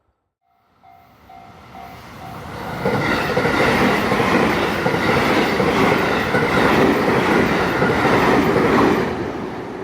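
JR West 223 series electric train passing over a level crossing: its running noise builds about a second in, stays loud for about six seconds and begins to fade near the end. A crossing warning bell dings steadily at the start before the train drowns it out.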